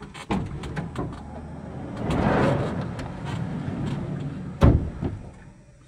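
People clambering out of the back of a van: a van's sliding side door rolls open with a rumble, bodies bump against the panels, and there is one heavy thud about three-quarters of the way through.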